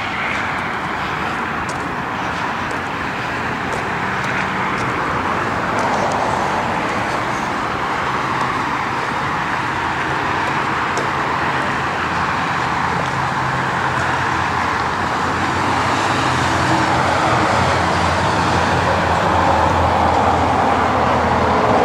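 Road traffic noise: a steady rush of cars on a multi-lane road, with a low engine hum swelling near the end as a vehicle comes closer.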